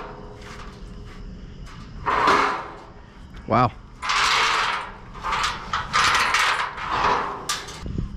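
Rope being hauled up hand over hand: a series of rough swishing and rubbing bursts, with a sharp knock near the end.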